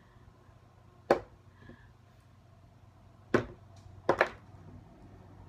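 Four sharp knocks of small plastic product bottles being handled and set down on a hard surface: one about a second in, then three more close together about three to four seconds in.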